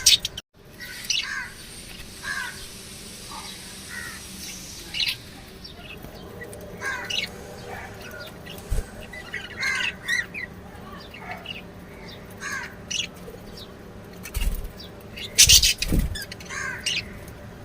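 Lovebirds chirping and squawking: a run of short, sharp chirps, with a louder, harsh squawk about fifteen seconds in.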